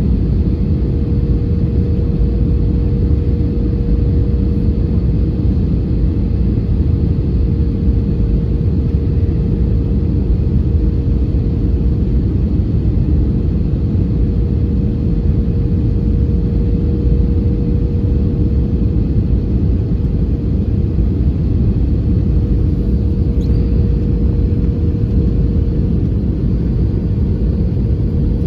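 Airbus A320neo airliner's cabin noise on descent towards landing, heard from a window seat by the wing: a steady low rumble of airflow and engines with a constant mid-pitched hum.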